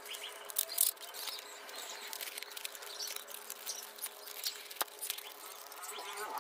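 Clear plastic tape and film crinkling and rustling as it is handled and peeled on a foam part, with scattered small clicks.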